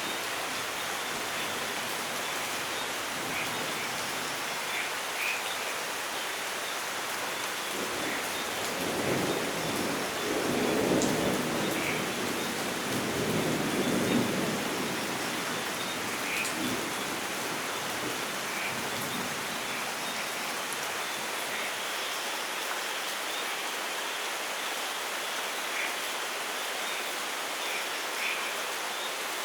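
Steady rain falling, with scattered drops tapping. A long rumble of thunder swells up about a quarter of the way in, peaks twice, and dies away around the middle.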